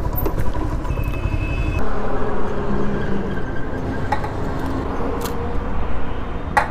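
Motorcycle being ridden, its engine running steadily under a low wind rumble on the rider's microphone. A short high beep sounds about a second in.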